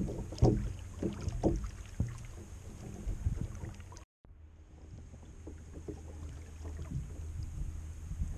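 Kayak paddling: the paddle blades dip and splash, with irregular knocks, loudest in the first half. A sudden brief silence about four seconds in, then fainter strokes over a steady low rumble.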